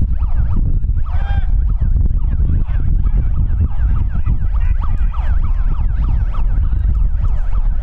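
Steady low rumble of wind on the microphone, with many short rising and falling shouts and calls from players on the pitch over it.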